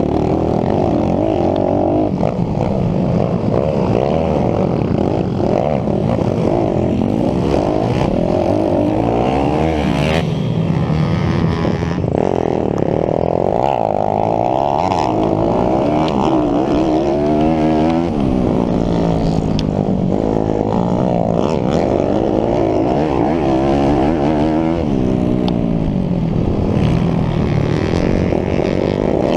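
YCF SP3 pit bike's single-cylinder four-stroke engine revving hard at close range, its pitch rising and falling over and over as the rider accelerates, shifts and backs off through the turns.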